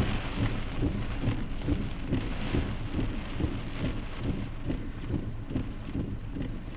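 Rain drumming on a vehicle, a steady hiss with many irregular low thumps.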